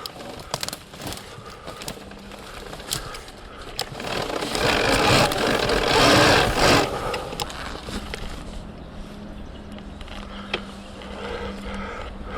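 Surron Ultra Bee electric dirt bike with a TORP TM50 Pro motor riding a rough forest trail: a low steady motor hum, scattered knocks and clatter from the bike. A louder rushing noise lasts about three seconds in the middle.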